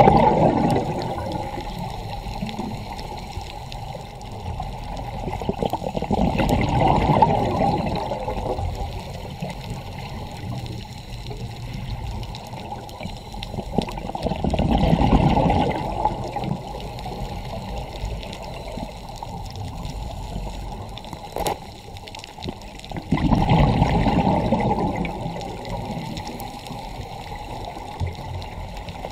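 Scuba diver's regulator breathing heard underwater: exhaled bubbles rush in a low, gurgling burst about every eight seconds, four times, with a quieter hiss between breaths.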